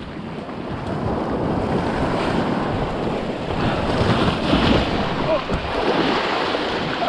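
Sea surge washing up over a rock ledge, growing louder a second or so in, with wind buffeting the microphone.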